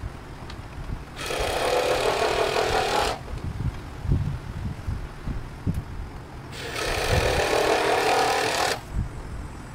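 A power tool runs twice, about two seconds each time, starting and stopping sharply. Between the runs there are a few low knocks.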